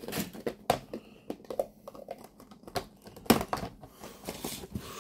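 Irregular light clicks and knocks of hands handling an opened Kinder Surprise Maxi egg: chocolate shell pieces and its yellow plastic toy capsule. The loudest knock comes about three seconds in.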